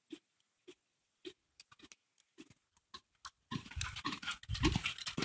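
Horse's hoofbeats in arena sand, soft regular thuds a little under twice a second. About three and a half seconds in, a much louder rough noise takes over as the horse comes close.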